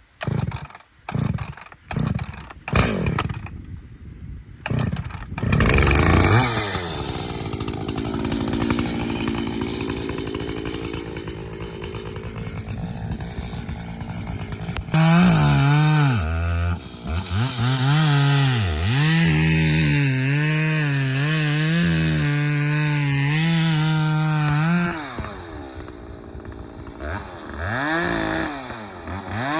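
Gas chainsaw being started, with several short bursts in the first few seconds before it catches and runs. About halfway through it revs hard and cuts wood, its engine note dipping under load and picking up again several times for about ten seconds, then easing back.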